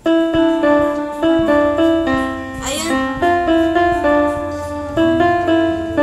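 A slow tune played on a Global GL444 electronic keyboard, with held notes changing two or three times a second.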